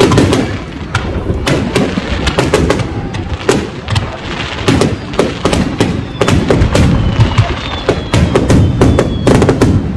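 Aerial firework shells bursting in rapid succession, many sharp bangs and crackles overlapping with hardly a pause.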